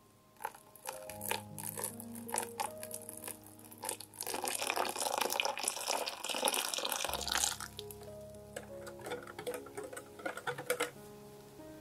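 Wire whisk clicking and scraping against a ceramic bowl as it stirs thin chocolate batter. From about 4 to 7.5 s a stream of liquid is poured into the bowl while the whisking goes on, and then the whisk clicks again.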